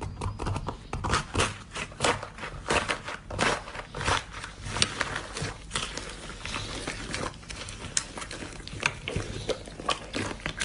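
Slime being squished and pulled by hand, giving a dense, irregular run of crackling clicks and pops.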